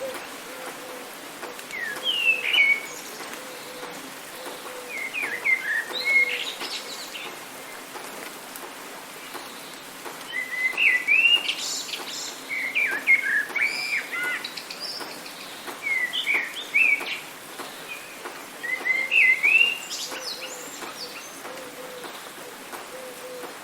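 Songbirds singing in short chirping phrases every few seconds, over a steady hiss of rain.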